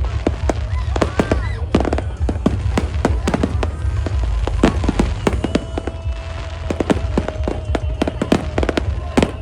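Fireworks display going off in rapid succession: a dense run of sharp bangs over a constant low rumble. A steady tone runs alongside from about halfway through.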